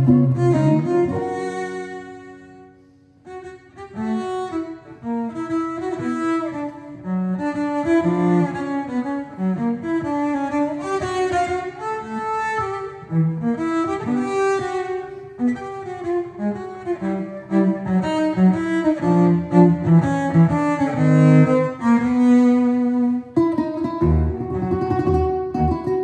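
Cello and 10-string bandolim duo. After a held note dies away, the cello plays a bowed melody alone, and the bandolim's plucked strings come back in near the end.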